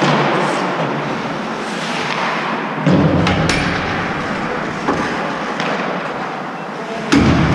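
Ice hockey play: a steady wash of skates on ice, several sharp clacks of sticks and puck, and two heavy thuds, about three seconds in and again near the end.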